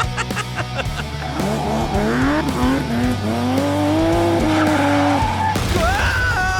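A vehicle engine hums steadily while squealing whines rise and fall in pitch, like tyre squeal, over music.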